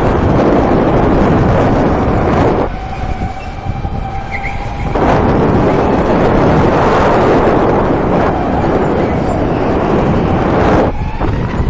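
Electric go-kart driven at speed, heard from on board: a loud rushing noise covers most of it, easing for about two seconds some three seconds in, when the electric motor's thin steady whine comes through. The rushing then rises again and dips once more near the end.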